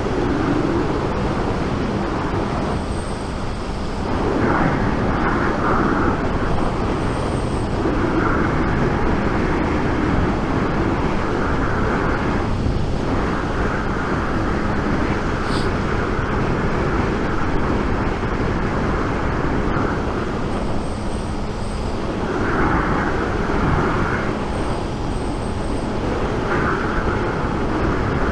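Heavy wind noise inside a motorcycle helmet at riding speed, picked up by a microphone inside the helmet, with a faint steady Suzuki GSX 750 engine note beneath. The noise swells and eases every few seconds; the helmet is very loud and whistles in the wind.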